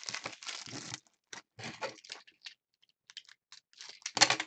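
Foil wrapper of a Panini trading-card pack crinkling as it is handled and opened by hand: a dense run of crackling in the first second, then scattered short crackles, and a louder crackle about four seconds in.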